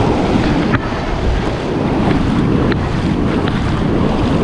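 Wind buffeting the microphone over the steady rush of breaking sea surf, with a few light clicks.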